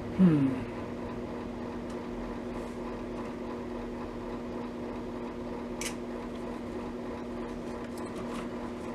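A steady electrical hum, with a short falling hum of a voice right at the start and one sharp click about six seconds in.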